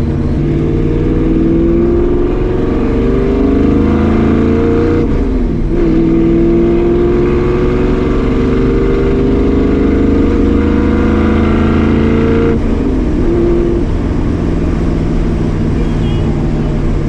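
1965 Ford Mustang's 302 V8 accelerating on the road, running through its freshly resealed headers. The engine note climbs through one gear, breaks at a shift about five seconds in, climbs again, then eases off about twelve seconds in.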